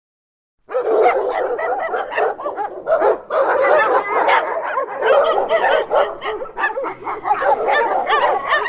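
Several dogs barking and yipping at once, with the calls overlapping in a continuous din. It starts suddenly just under a second in, out of silence.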